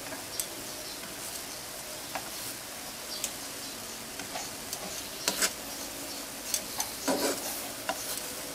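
Banana slices sizzling gently in a nonstick Teflon frying pan on low heat, with stainless steel tongs clicking and tapping against the pan as the slices are turned. The loudest clicks come about five and seven seconds in.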